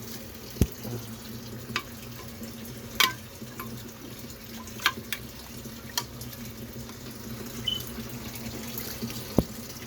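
Kitchen faucet running steadily into the sink, with a few sharp clinks and knocks of utensils or dishes scattered through it.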